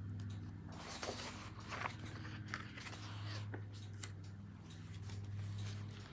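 Faint scattered rustles and small clicks, like paper and hands being handled, over a steady low electrical hum.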